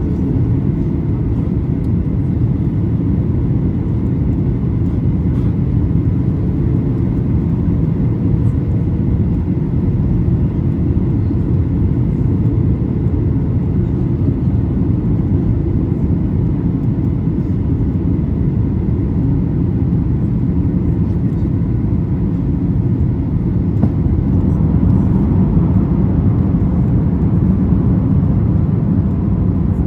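Steady cabin noise inside a Boeing 737-800 in flight: the rush of its CFM56-7B engines and air over the fuselage, deep and unbroken, growing a little louder about 24 seconds in.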